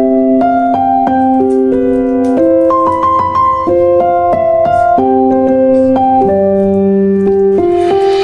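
Background piano music: a simple melody over held chords, with notes changing about every half second.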